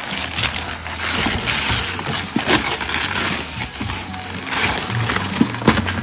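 Gift-wrapping paper being ripped and crumpled off a large cardboard toy box, in repeated tearing and rustling strokes.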